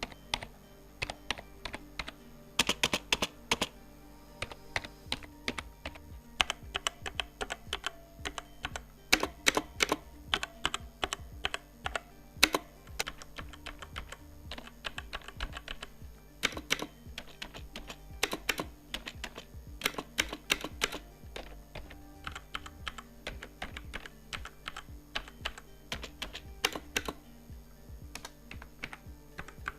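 Typing sound test on computer keyboards: a Cosmic Byte CB GK 18 mechanical keyboard with Outemu red linear switches compared with an old Logitech membrane keyboard. Irregular quick keystroke clicks, with louder clusters of strokes here and there.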